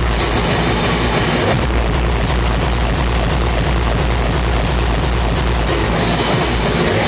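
Hardcore techno played very loud over a large sound system, distorted and noisy in the recording, with a heavy kick-drum bass; the bass drops out briefly about one and a half seconds in and thins again near the end.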